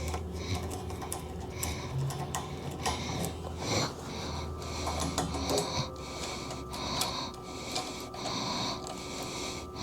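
Metal worm-drive hose clamp being worked around a rack bar and started on its screw: small metal clicks and scrapes, then from about halfway through a run of regular clicking bursts about once a second as the clamp screw is turned.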